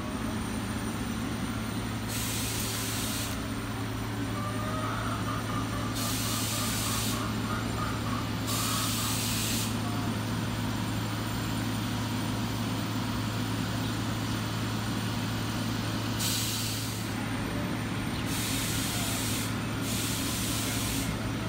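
City background noise: a steady low hum, broken by six separate bursts of hiss, each about a second long.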